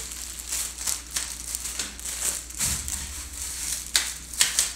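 Clear plastic sleeve on a new fishing rod crinkling and rustling as it is handled, with the loudest rustles near the end.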